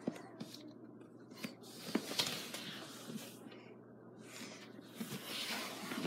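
Faint handling noises close to the microphone: light taps and knocks on a wooden floor with rustling, and two breathy hisses, about two seconds in and again near the end.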